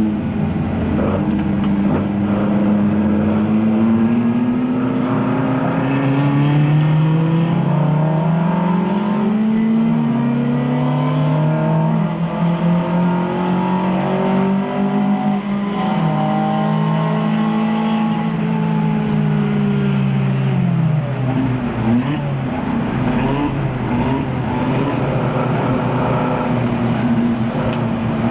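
1971 Alfa Romeo Giulia's twin-cam four-cylinder engine at racing speed, heard from inside the car. The revs climb and drop again and again as the driver works through the gears and brakes for corners.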